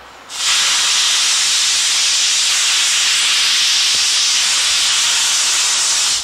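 Cylinder drain cocks of the C58 239 steam locomotive blowing off steam: a loud, steady hiss that starts sharply about a third of a second in and cuts off just before the end.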